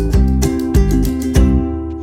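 Background music of strummed guitar chords in a steady rhythm, dying away in the last half second.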